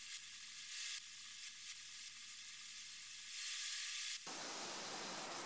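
Gravity-feed compressed-air spray gun hissing as it sprays primer, swelling and dipping with each pass. About four seconds in the hiss suddenly turns broader and fuller.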